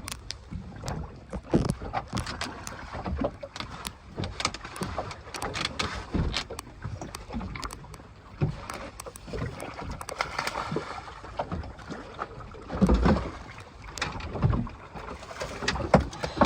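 Irregular knocks and clicks on a small boat over wind and water noise, with a couple of heavier thumps late on.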